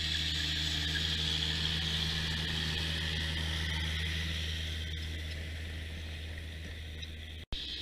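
John Deere 6920 tractor's six-cylinder diesel engine running steadily as the tractor pulls a plough past, easing off slightly as it moves away. The sound cuts out for an instant near the end.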